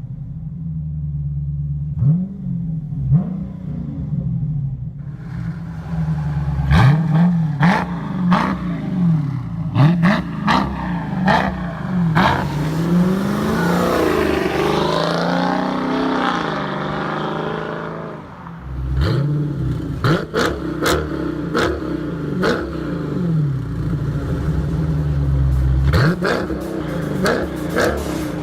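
Dodge Challenger T/A 392's 6.4-litre HEMI V8 through a Kinney's Tunnel Ram performance exhaust, revved repeatedly in short blips from idle. About halfway through, a longer stretch of the engine note sweeps up and down before the blips resume.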